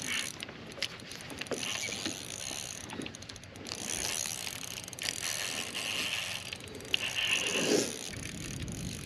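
Fishing reel being cranked in spells to bring in a hooked fish, its gears whirring and clicking.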